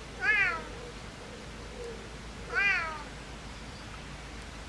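Siamese cat meowing twice, about two seconds apart, each meow rising then falling in pitch.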